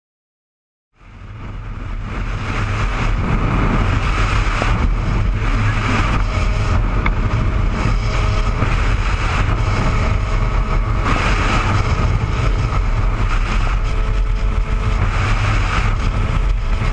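Wind rushing over a helmet-mounted camera on a motorcycle at highway speed, with the engine and road noise underneath; it fades in about a second in and then runs steadily.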